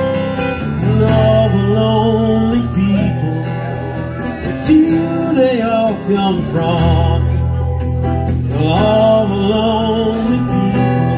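Live acoustic band playing: strummed acoustic guitars under a flute melody that wavers in pitch.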